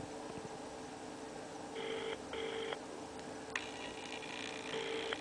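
UK-style double-ring ringback tone of an outgoing call not yet answered, played through the small speaker of a homemade Bluetooth headset inside a Star Trek communicator. Two double rings come about three seconds apart, with a single click between them.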